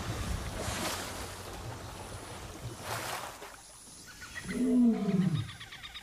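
Asian elephants splashing in shallow water. About four and a half seconds in, an elephant gives one loud roar that rises and then falls in pitch.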